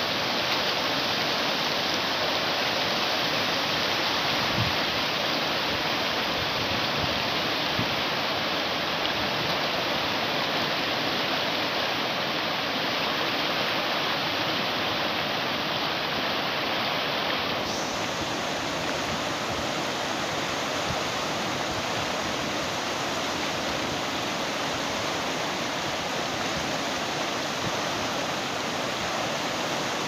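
Shallow, fast river rushing through rapids over rocks and boulders: a steady hiss of white water.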